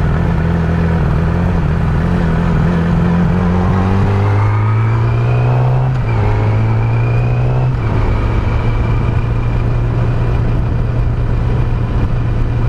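Yamaha R6 inline-four engine under way: it holds low revs, then rises in pitch twice, with a short dip at each upshift about six and eight seconds in, and then runs steady, over rushing wind. The engine has a low-speed jerk and rough running that the owner suspects come from an ignition coil or dirty injectors.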